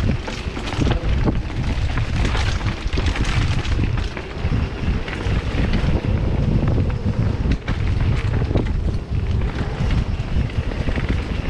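Wind rushing over the camera microphone on a fast mountain-bike descent, mixed with the constant rattle and knocks of the bike over rough trail.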